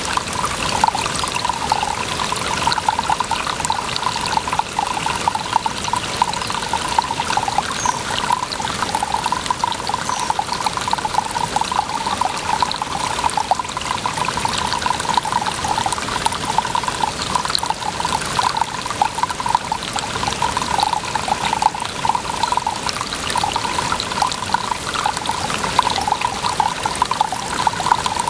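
Water running and trickling steadily, a continuous bubbling splash that holds the same level throughout.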